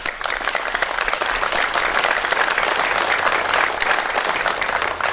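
A small seated crowd clapping in applause, dense many-handed clapping that swells over the first couple of seconds and holds steady.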